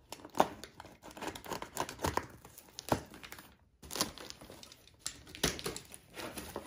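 Cardboard shipping box being opened by hand: tape tearing loose and the cardboard flaps crinkling and scraping as they are pulled back, in irregular crackles and sharp clicks.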